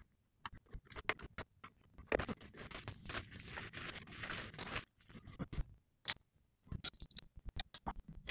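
Handling noises from cable and gear: scattered light clicks and taps, with about three seconds of scraping rustle in the middle.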